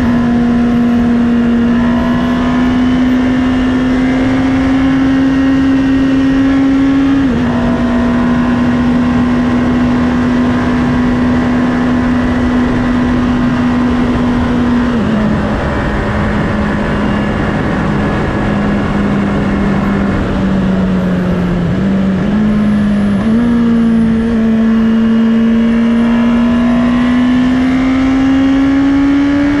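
2019 Honda CB650R inline-four engine running under way at a steady pitch. The pitch steps down at about 7 seconds and again at about 15 seconds, as at upshifts, wavers a little past the middle, then climbs steadily again as the bike accelerates, over a steady rush of wind and road noise.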